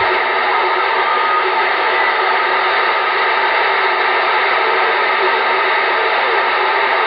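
CB radio receiver on a skip channel (channel 38, lower sideband) putting out a steady static hiss, with a few faint whistles in the noise. The band is crowded with distant stations, which makes weak signals hard to pull out.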